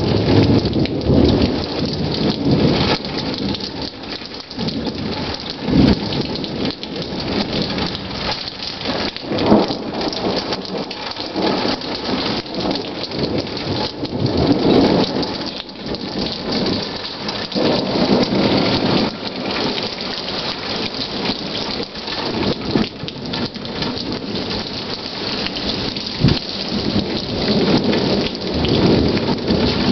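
Steady rain falling, with rolls of thunder rumbling through several times and a short, sharp low thump a few seconds before the end.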